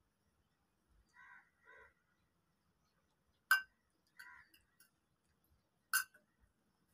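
Two sharp clicks of knitting needles knocking together, about two and a half seconds apart, over faint short calls of a bird, three of them.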